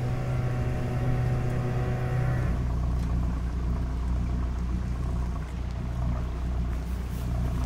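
Outboard motor on an inflatable dinghy running steadily. About two and a half seconds in, its note drops lower and deeper as the boat slows.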